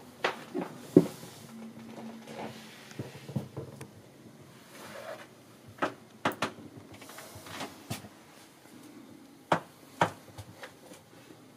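Scattered sharp knocks and clicks in a small wood-panelled cabin, the loudest about a second in, a few more around six seconds and a pair near the end.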